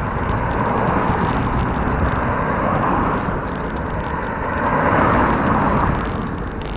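Steady road noise heard from a moving bicycle, a mix of rushing air and rolling rumble, swelling to its loudest about five seconds in and easing again.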